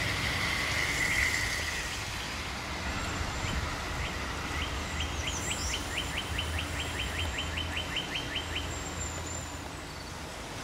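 G-scale model train running along garden railroad track, a low hum over steady outdoor noise. Midway through, a bird gives a rapid run of short chirps, about five a second, for around four seconds.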